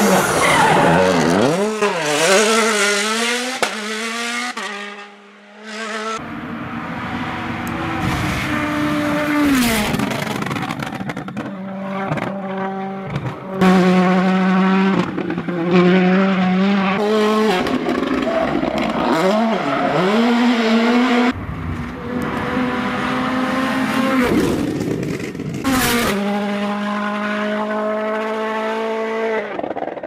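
World Rally Cars with 1.6-litre turbocharged four-cylinder engines (Hyundai i20 WRC, Citroën C3 WRC) driven hard on tarmac, one car after another: engine notes climb through the revs and drop sharply at gear changes and braking for the bends.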